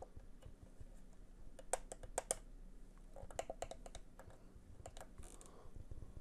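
Faint, scattered clicks and light knocks of a small black plastic part being handled and turned over in the hand, a few coming in quick little bunches.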